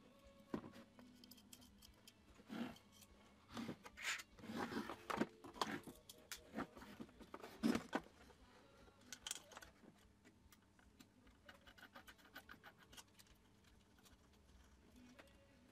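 Hands handling the plastic parts of a car headlight: irregular clicks, taps and scraping of the housing and its chrome reflector, busiest in the first half and down to scattered light ticks later on.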